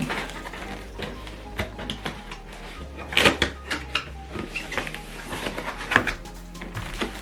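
Speaker packaging and accessories being handled: an irregular run of clicks, knocks and rustles, loudest about three seconds in and again near six seconds.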